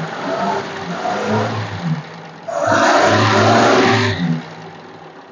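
1968 Ford F-75's six-cylinder engine running unevenly on gasoline poured into the carburettor. About halfway through it revs loudly for a second and a half, then drops back and weakens, starved of fuel.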